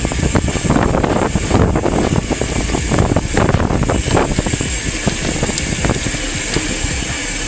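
Wind buffeting an action camera's microphone while riding a mountain bike on a concrete road, over tyre rumble and frequent irregular rattles from the bike.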